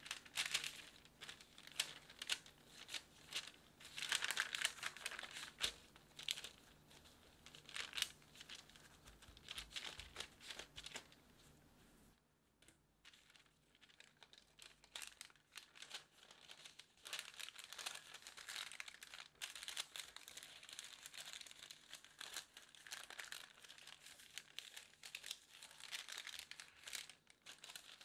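Parchment paper crinkling and rustling as it is handled and folded over a slab of cookie dough, in irregular bursts of sharp crackles. It drops off briefly about halfway through, then picks up again as softer, steadier rustling.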